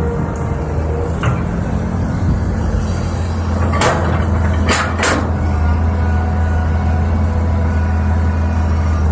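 Tracked hydraulic excavator's diesel engine running steadily, a little louder as the boom lowers, with several sharp metallic clanks from the bucket and boom linkage, one about a second in and a cluster about four to five seconds in.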